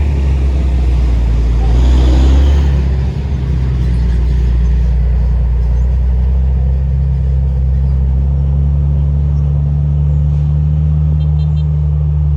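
Heavy Volvo diesel engine, rated 450 hp Euro 5, running under load on a steep climb with a steady low drone, swelling louder about two seconds in.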